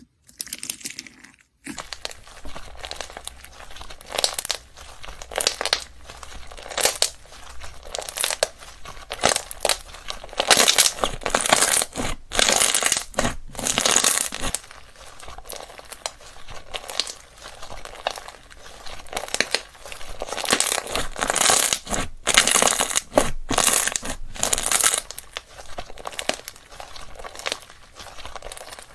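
Slime being squeezed and pressed by hand, giving a dense run of irregular crackles and pops, with swells of louder crackling twice.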